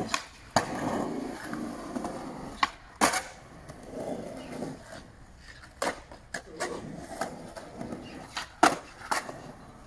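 Skateboard wheels rolling on concrete, broken by sharp clacks of the deck: a landing off a metal flat bar about half a second in, then more pops and landings, several of them close together around 6 to 7 seconds.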